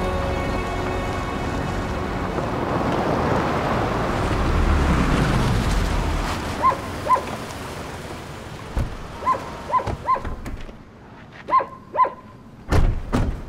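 Background music fades out as a Bentley SUV drives over a gravel dirt track, with a swelling noise of tyres and engine. Then come a scatter of short, high-pitched calls, mostly in pairs. Near the end a car door shuts with a sharp thump.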